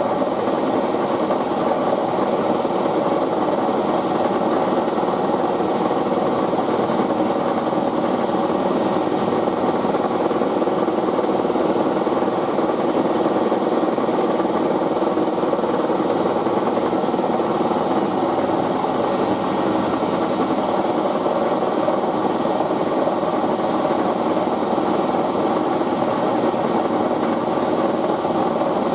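Milling machine running steadily with its cutter working an aluminium test part, a constant mechanical hum and whir.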